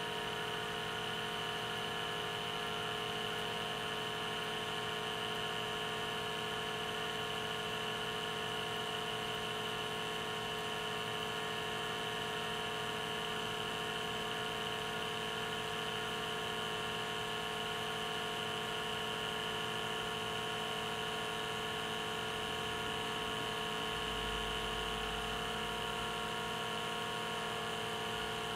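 Handheld electric vacuum pump running steadily on a coffee dripper, a constant whir, pulling a vacuum over the grounds during the bloom.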